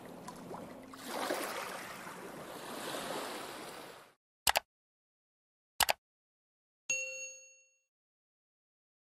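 Subscribe-button animation sound effects. A faint rushing, wave-like noise swells and fades, then come two mouse clicks over a second apart, the second a quick double. Near the end a single bright bell ding rings out briefly, the notification-bell cue.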